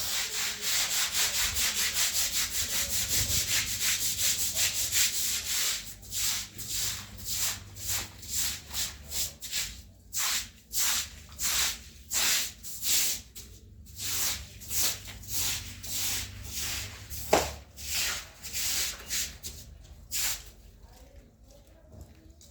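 Scrubbing a floor with stiff bristles, the back-and-forth strokes coming quick and close, about four a second, then slower and separate, and stopping about twenty seconds in.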